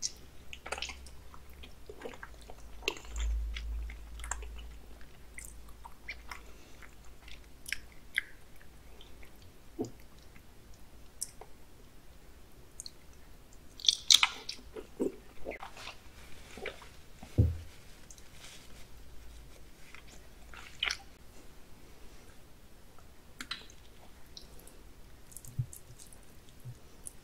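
Close-miked chewing and biting of raw salmon sashimi: soft wet mouth clicks and smacks throughout, with a few louder ones about halfway through.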